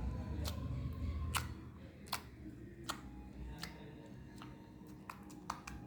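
Slime being pressed and squeezed by hand, giving a string of sharp, irregular clicking pops, about one or two a second, with a low handling rumble in the first second and a half.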